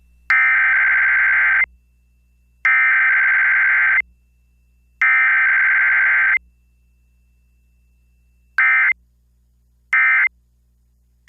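Emergency Alert System SAME data tones: three identical bursts of rapid two-tone digital warbling, each over a second long and about a second apart, forming an alert header. Two short bursts of the same warble follow near the end, with a third starting just as it ends: the end-of-message code.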